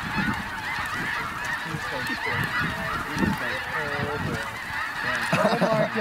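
A large flock of snow geese calling: a dense chorus of many overlapping high honks, growing louder near the end.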